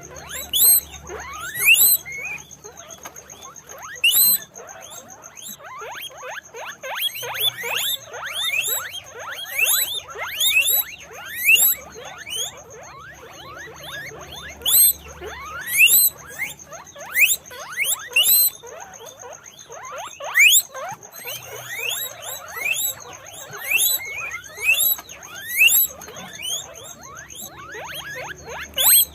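Several guinea pigs squeaking: many short, sharply rising whistle-like calls, overlapping and coming irregularly throughout.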